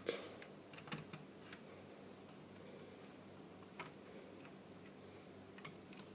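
Light clicks and taps of Lego plastic pieces as the space shuttle's payload bay doors are handled and closed. There is a sharper click at the start, a few scattered ones after it, and a quick cluster of clicks near the end.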